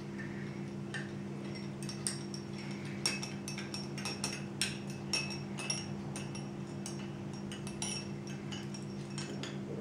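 A spoon clinking against the inside of a glass, a string of light, irregular taps with a short ring, as vinegar is stirred in it. A steady low hum runs underneath.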